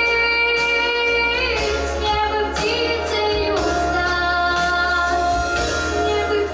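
A girl singing long, held notes over a recorded pop backing track, sliding from one pitch to the next between them.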